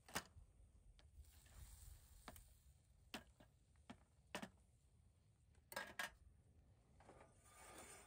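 Scattered sharp clicks and light knocks of small objects being handled, with a soft rustle about two seconds in and again near the end.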